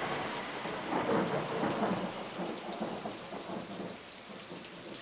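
Heavy rain pouring steadily, swelling a little about a second in.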